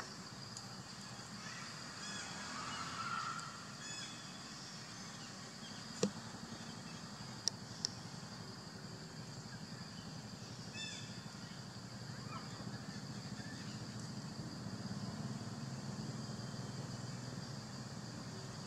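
Outdoor forest ambience: a steady high insect drone with scattered short bird chirps over a low distant rumble, a brief call about three seconds in, and a few sharp clicks around the middle.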